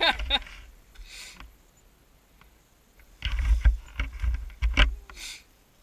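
Dry leaves crunching and rustling underfoot, then a cluster of knocks, thuds and rustles as a toppled dirt bike is grabbed and hauled up out of the leaf litter.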